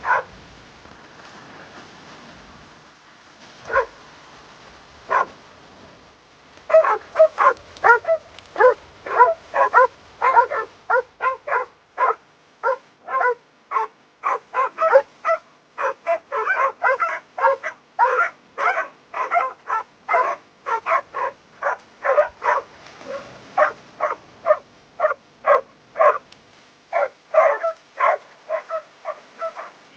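Dog barking: a few single barks, then from about seven seconds in a rapid, continuous run of barks, several a second.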